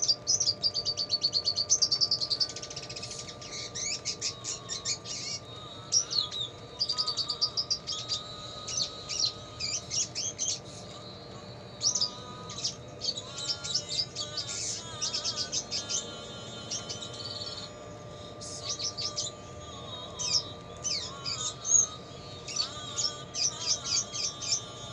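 Red siskin singing in bursts of rapid, high chirps and trills, a song that includes lovebird-like phrases.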